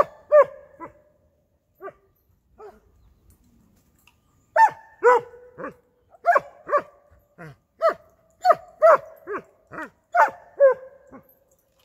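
A dog barking: a few scattered barks, then from about four and a half seconds in a steady run of short, high barks, about two a second, each dropping in pitch.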